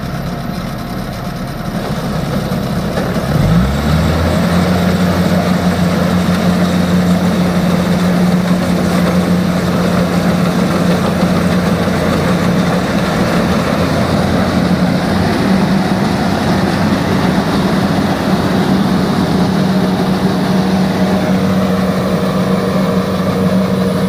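Kubota DC-70 combine harvester's diesel engine running under load while harvesting rice. About three and a half seconds in it revs up, then holds a steady, higher, louder hum.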